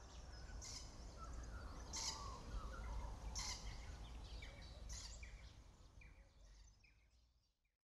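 Faint outdoor ambience: a low steady rumble with scattered short bird chirps and a few brief rasps. It fades out to silence near the end.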